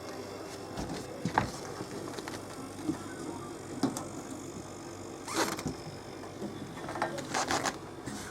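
Scattered clicks and knocks, with one short scrape about halfway through and a quick run of knocks near the end, over a steady low hum.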